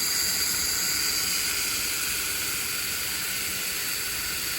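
DEERC D20 mini quadcopter's propellers spinning, a steady high-pitched whine over a hiss.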